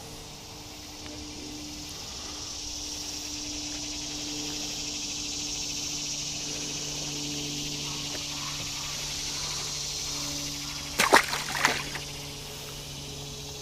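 Chorus of insects in a steady high buzz, over a steady low hum. Two short, loud sounds stand out near the end, about a second apart.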